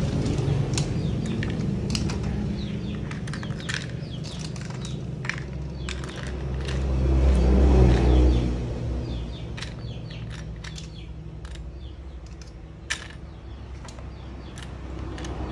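Plastic Lego bricks clicking and clattering as they are picked up and set down, with irregular sharp clicks throughout. A low rumble swells and fades about halfway through, the loudest thing heard.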